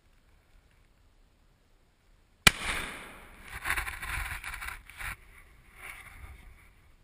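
A single muzzleloader rifle shot about two and a half seconds in, followed by a few seconds of loud rumbling noise that cuts off sharply about five seconds in.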